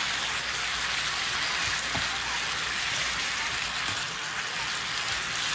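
Chicken strips with onion and green bell pepper sizzling steadily in an electric skillet as they are stirred with a silicone spatula.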